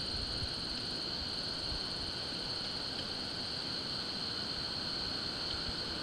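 Summer outdoor ambience of insects: a steady high-pitched buzz and, above it, a fast pulsing trill that breaks off briefly about a second in, over a light rumble of wind on the microphone.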